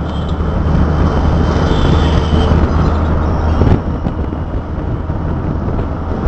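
Noise of a moving vehicle in city traffic: a steady low engine drone with road noise. The drone eases off a little just under four seconds in.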